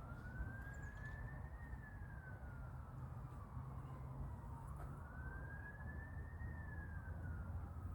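Faint siren wailing slowly: the tone rises and falls twice, each cycle about five seconds long, over a low steady rumble.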